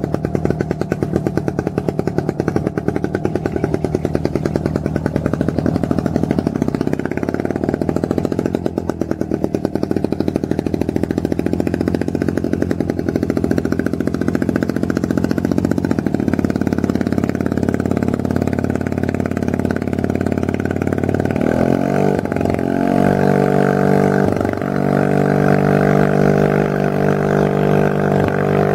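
Engine of a Pengor Penguin amphibious ATV running steadily as it drives down a ramp into a lake and motors out on the water, with the engine note climbing to a higher, stronger pitch about three-quarters of the way in.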